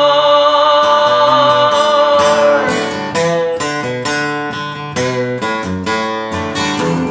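Country song on acoustic guitar: a held note rings until about two and a half seconds in, then the guitar plays a picked instrumental passage between verses.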